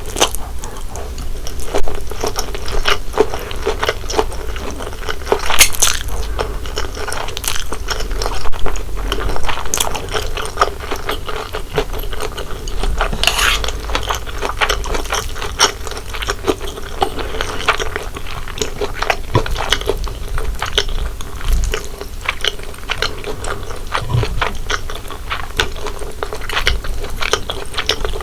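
Close-miked eating utensils clicking and scraping irregularly against a dish of corn-cheese Buldak fried noodles, over a steady low hum.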